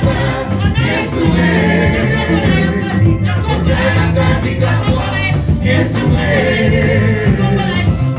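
Gospel music with group singing over a steady band accompaniment, played loud.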